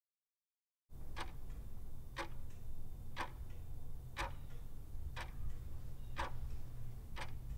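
Countdown sound effect for a film-leader countdown: a sharp clock-like tick once a second, seven in all, over a steady low rumble, starting about a second in.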